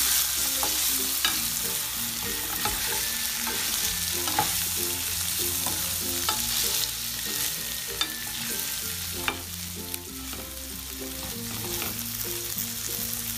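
Stuffed ridge gourds and soaked chana dal sizzling in hot oil in a stainless steel pan while being sautéed with a spatula, which now and then taps and scrapes against the pan.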